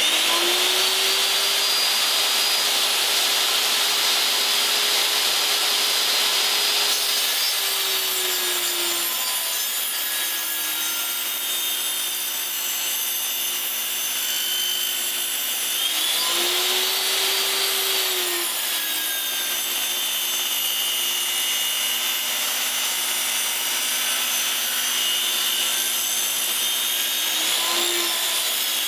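Benchtop table saw running and ripping a board lengthwise. The motor's pitch drops and rises a few times as the cut loads it.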